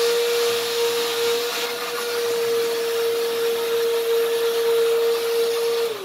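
AFBEST cordless handheld vacuum cleaner running with a steady whine and airflow hiss as it sucks up crumbs from a tabletop. It is switched off at the end, and the motor winds down with a falling whine.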